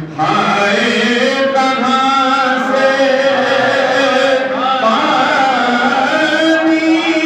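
A man's voice singing an Urdu nauha, a Shia lament, unaccompanied into a microphone in long, held, sliding notes. Another man's voice joins in.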